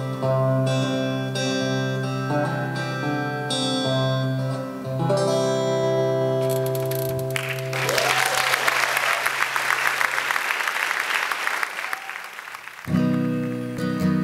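Acoustic guitar and keyboard holding the last notes of a song, which fade out. Audience applause breaks out about halfway through, and a new strummed acoustic guitar starts near the end.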